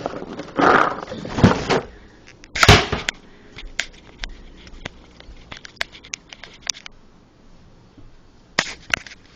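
Rustling and knocking from a handheld phone being moved about, then a scattered run of light clicks and taps.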